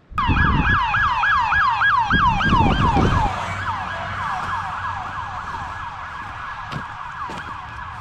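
Fire chief's vehicle siren in a rapid yelp, about four sweeps a second, starting suddenly. A low rumble runs under it for the first three seconds, then the siren fades steadily as the vehicle moves away.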